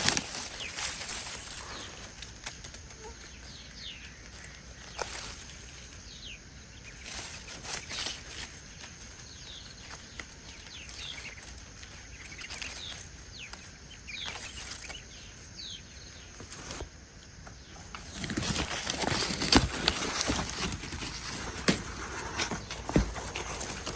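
Scattered short bird chirps, each a quick sliding note, over a faint steady hiss, with intermittent rustling and crackling that gets louder for a few seconds near the end.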